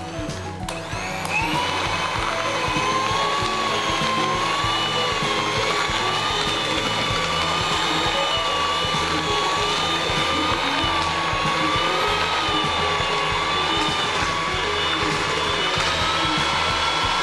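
Electric hand mixer switched on about a second in, its whine rising to speed and then running steadily with a slight up-and-down waver in pitch as the beaters cream margarine and sugar. Faint background music underneath.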